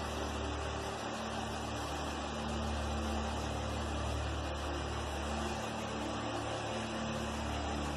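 Steady engine and airflow noise of an aircraft in flight: an even hiss over a low hum, unchanging throughout.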